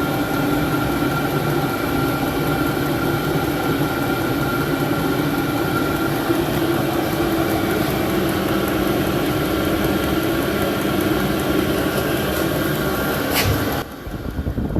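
12 V diesel air heater running, with a steady fan whir and a steady whine. A single sharp click comes near the end, just before the sound drops in level.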